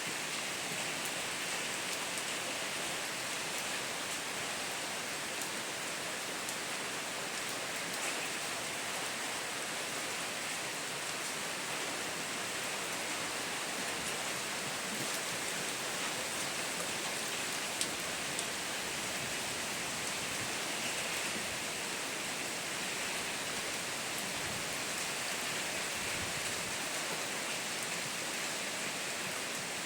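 Steady rainfall: an even hiss of rain with scattered individual drops ticking now and then.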